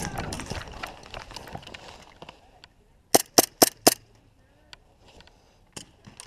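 Airsoft gas blowback pistols firing on semi-auto: four sharp shots in quick succession about halfway through, and another single shot near the end.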